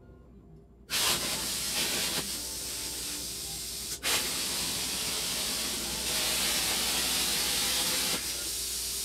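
Hypertherm plasma cutter torch firing about a second in, then a loud steady hiss of the air plasma arc cutting sheet metal on a CNC table. There is a brief dip with a click about four seconds in.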